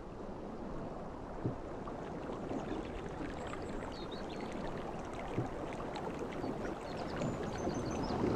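Sea surf washing as a steady rush of water noise, building near the end. Two soft knocks and a few faint high chirps sit over it.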